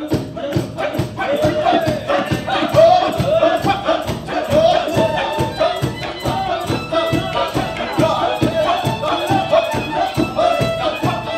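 Slovak folk cimbalom band (violins, kontra viola, double bass, cimbalom) playing a lively Gypsy-style tune over a quick, steady rhythmic accompaniment. The full band comes in right at the start, after a few separate plucked or struck notes.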